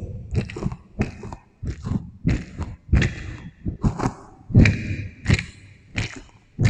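Close-miked eating of juicy fruit with an echo effect: a run of crunchy bites and wet chewing, about two sharp crunches a second, some with a juicy smack.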